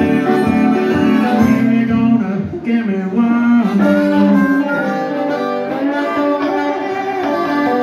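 Live blues band: harmonica playing held, wailing notes over a strummed acoustic guitar and an electric guitar.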